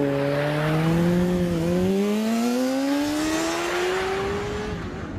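A vehicle engine accelerating, its pitch rising steadily with a brief dip about one and a half seconds in, as at a gear change. It cuts off abruptly near the end.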